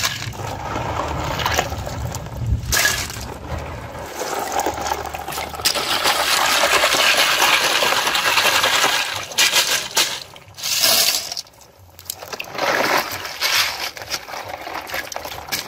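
Live snails being washed by hand in a plastic tub of water: water sloshing and splashing, with the shells clattering against each other and against a plastic basket as they are stirred and shaken.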